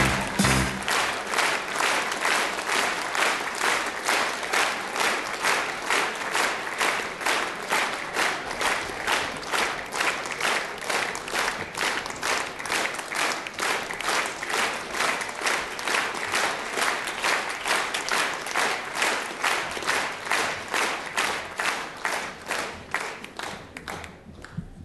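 Large theatre audience applauding, clapping together in steady rhythmic unison at a quick even beat, dying away near the end.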